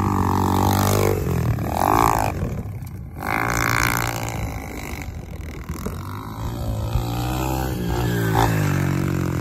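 SSR 125 pit bike's single-cylinder four-stroke engine revving up and down as it is ridden hard through a corner and up a hill.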